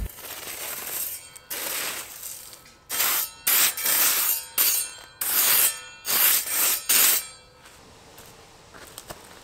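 Crushed-stone ballast gravel scraped and pushed aside with a small hand tool: a series of about seven quick, gritty strokes, starting about a second and a half in and ending around seven seconds in.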